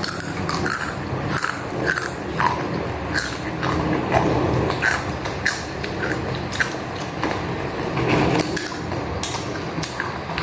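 Close-up eating: biting and chewing food, with many short, irregular sharp clicks as the food is bitten and chewed.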